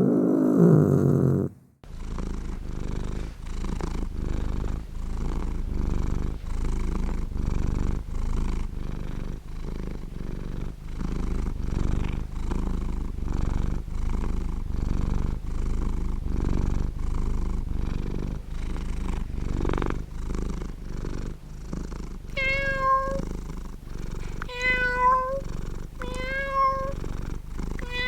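Domestic cat purring in a steady rhythm that swells and fades with each breath, with several short meows over the purr near the end. A different, falling-pitched animal call cuts off just before the purring starts.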